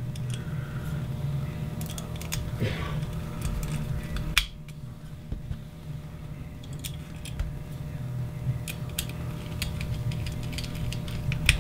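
Small screwdriver tightening machine screws into a metal servo block, with scattered light clicks and ticks of the tool and parts being handled, and a sharper click about four and a half seconds in, over a low steady background hum.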